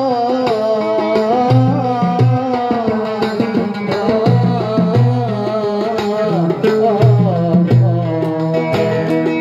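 Live Middle Eastern-style music led by a Yamaha electronic keyboard: a wavering, ornamented melody over a bass line and a steady drum rhythm.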